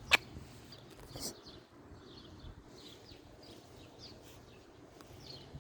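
A sharp click just after the start, then faint bird chirps: several short calls, each sliding down in pitch.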